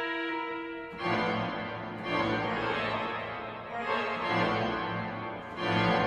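Organ playing a contemporary piece: a held chord, then about a second in a loud, dense chord strikes, and new forceful chords follow near two, four and five and a half seconds.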